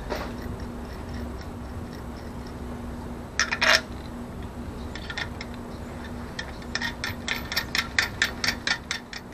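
Small hard clicks from hands fastening an antenna cable connector and its fittings on a sailboat's masthead. There is a short cluster of clicks a few seconds in, then a quick run of about five clicks a second near the end, over a steady low hum.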